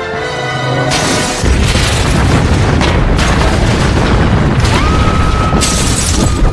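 Film sound effects of a construction crane's steel boom crashing through a skyscraper's glass wall. About a second in, music gives way to a loud, rumbling crash with shattering glass and several sharp impacts. A high held tone sounds near the end.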